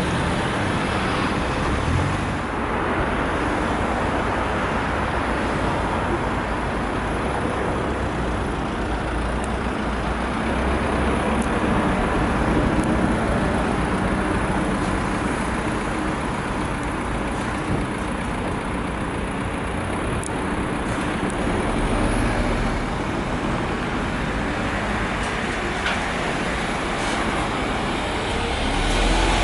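Steady street traffic noise with buses' engines running by; a coach passes close near the end, its low engine rumble swelling briefly.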